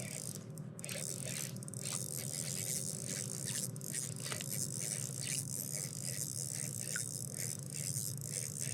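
Fishing reel being cranked to bring in a hooked fish, a continuous scraping whir with irregular scratchy strokes; the fish is heavy to pull up.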